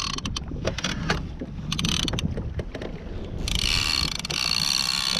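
Fishing reel working against a hooked fish: rapid clicking and ratcheting, then a steady high buzz from about three and a half seconds in, over a low rumble of wind and water on the microphone.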